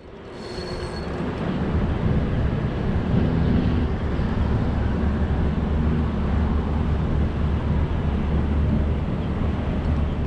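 Steady low mechanical rumble with a constant hum, like a motor running, fading up over the first couple of seconds and then holding steady.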